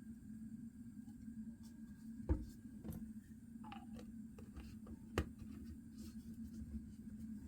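Scattered small clicks and knocks over a steady low hum, with two sharper knocks about two and a half and five seconds in.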